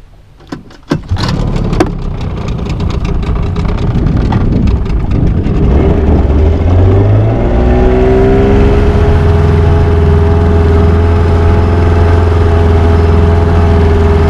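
15 hp outboard motor: a few knocks about a second in as it is started and put in gear, then running, its pitch rising between about six and eight seconds as the throttle opens, then running steadily at speed.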